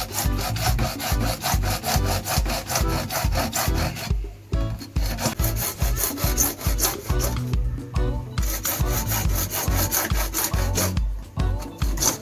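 A saw cutting holes into plumbing pipe with quick back-and-forth strokes, about four a second, pausing briefly twice and again near the end.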